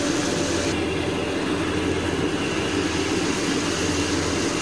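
Strips of dried tofu skin frying in hot oil as they puff up, a steady sizzle over a steady low kitchen hum; the higher part of the sizzle thins out about a second in.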